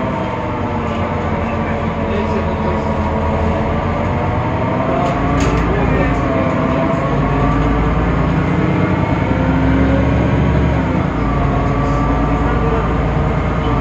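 Temsa Avenue LF city bus under way, its DAF PR 228 diesel engine and ZF Ecolife automatic gearbox running with a whine of several tones over a low rumble, the whine slowly rising and falling with speed. This is the bus's unusual sound, different from the normal one.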